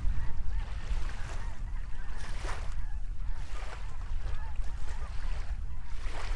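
A large flock of geese calling in flight, many honks overlapping continuously, over a steady low rumble of wind on the microphone.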